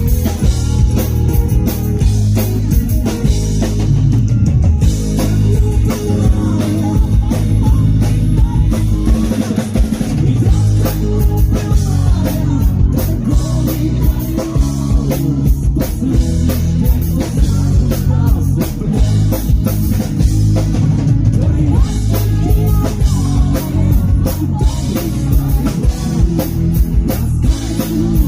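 Live rock band playing a song in an acoustic arrangement, with guitars and a drum kit keeping a steady beat.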